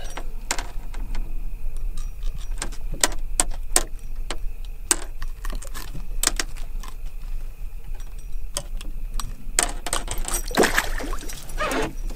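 Irregular clicks, knocks and light rattles of a freshly caught pike being grabbed by hand and unhooked in the boat, with a denser burst of rattling about ten seconds in. A low steady hum runs underneath.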